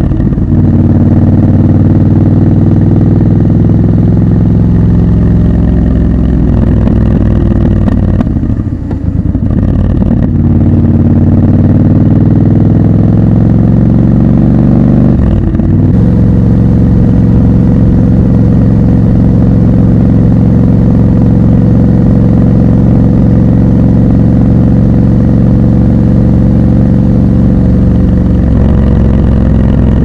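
Triumph Scrambler 1200 XC's parallel-twin engine under way, heard raw from the bike. It climbs in pitch at the start, eases off briefly about nine seconds in, pulls up again, and after a short break in the note about fifteen seconds in runs at a steady pitch.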